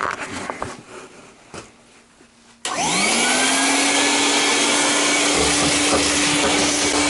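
Small handling clicks, then about two and a half seconds in a vacuum cleaner switches on, its motor whining up to speed within about a second and then running steadily and loud.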